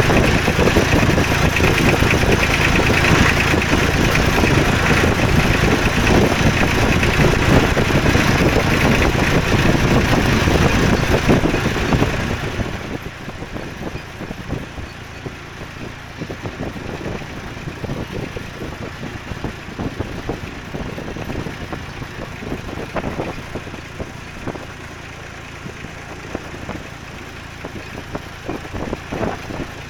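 Fordson Dexta tractor engine running steadily while the tractor drives along. It is loud at first, then drops to a clearly quieter run about twelve seconds in and stays there.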